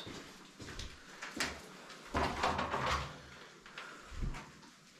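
Scattered scuffs, rustles and light knocks of people moving about on foot, in three short clusters with quieter gaps between.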